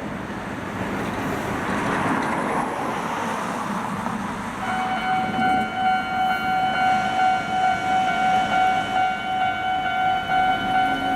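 A vehicle passes, then about five seconds in a Japanese railway level-crossing warning bell starts ringing, a steady high tone pulsing about twice a second, signalling that a train is approaching.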